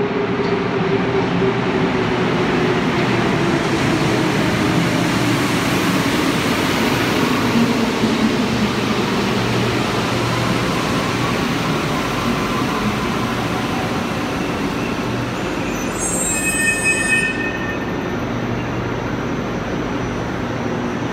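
CAF rubber-tyred metro train pulling into the station and slowing to a stop. A whine falls steadily in pitch through the first eight seconds, and a brief high-pitched squeal comes about sixteen seconds in as it stops.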